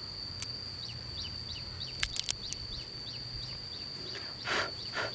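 Rural outdoor ambience: a bird gives a series of short, falling chirps over a steady high-pitched drone. There are a few sharp clicks partway through and two brief rustles near the end.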